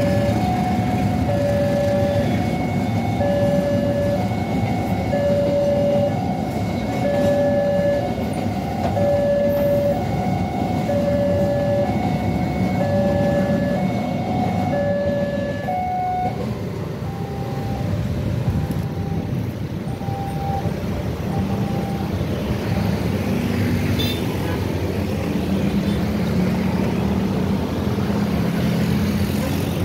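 A railroad crossing warning alarm repeats a two-tone electronic chime every second and a half or so. It weakens about sixteen seconds in and stops a few seconds later. Underneath, a long train of empty freight wagons rumbles steadily past.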